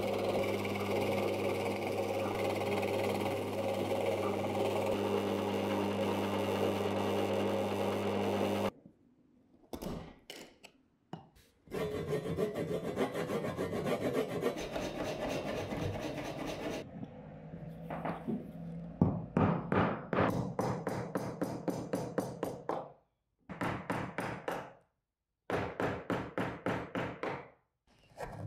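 A drill press motor runs with a steady hum while a Forstner bit bores into a wooden block; the sound stops abruptly. A few seconds later a hand tool scrapes steadily on the wood. Then a chisel is tapped into the wood in quick runs of sharp knocks with short pauses between them, hollowing out the cup.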